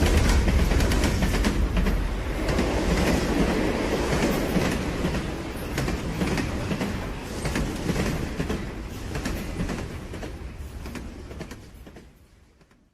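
Heavy rumbling vehicle noise with many rapid clattering clicks, growing fainter through the second half and fading out to silence at the very end.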